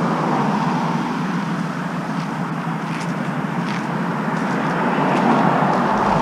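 Steady road and engine noise of a car driving, with a few faint ticks a couple of seconds in.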